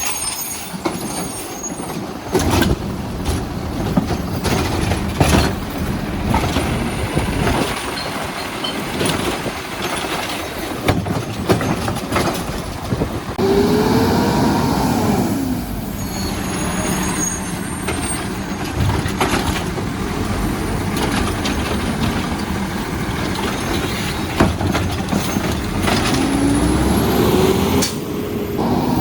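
Automated side-loader garbage truck with a Heil Rapid Rail arm running, with repeated sharp bangs and clanks of carts being lifted, shaken out and set down. Twice the hydraulic arm whines up and back down in pitch, about halfway through and again near the end.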